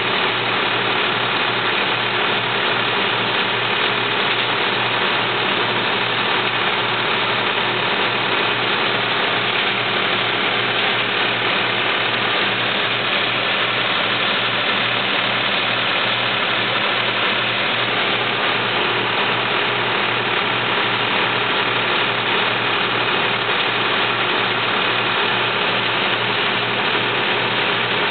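Mechanical grape harvester running steadily: an engine drone under the constant rattle of its conveyor and picking mechanism, with an even, repeating low beat.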